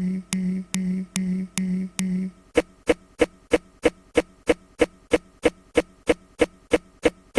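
A tiny snippet of a humming tone looped over and over in a stutter edit, each repeat starting with a click, about two and a half times a second. A little over two seconds in it switches to a shorter, fainter clipped fragment that repeats a little under four times a second.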